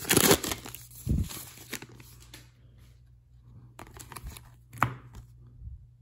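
A trading-card pack wrapper being torn open and crinkled by hand, loudest at the start. It is followed by quieter rustling and a few light clicks and taps as the stack of cards is handled.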